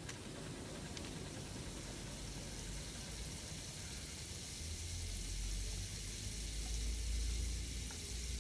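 Faint steady hiss of room ambience, with a low hum that swells in about halfway through.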